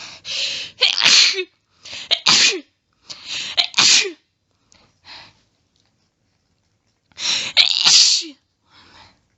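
A woman's allergy sneezing fit: three rapid sneezes in quick succession, each preceded by a sharp catching inhale, then a pause of a few seconds and a fourth sneeze near the end, with soft breaths between.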